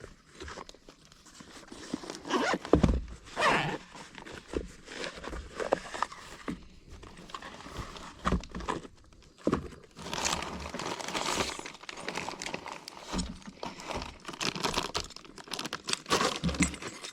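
Irregular crinkling and rustling with scattered clicks and knocks, as of packaging or gear being handled.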